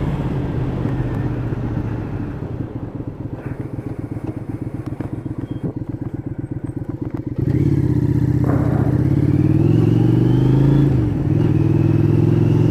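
Motorcycle engine running at low revs with a fast, even putter while the bike rolls through a junction. About seven seconds in the throttle opens and it pulls away noticeably louder, the revs rising and dropping back at gear changes.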